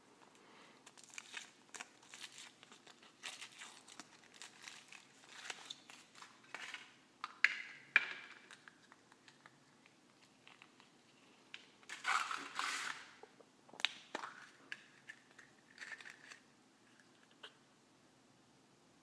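Foil wrapper crinkling and tearing as it is peeled off a chocolate surprise egg, then the chocolate shell cracking and the plastic toy capsule being handled. The crackles are irregular, loudest a little before halfway and again about two-thirds through.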